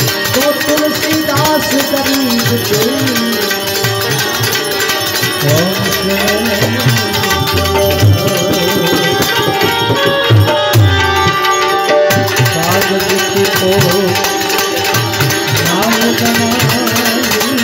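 Tabla playing, its bass drum's pitch swooping up and down in repeated arcs, with an Indian banjo and manjira hand cymbals keeping up a steady accompaniment.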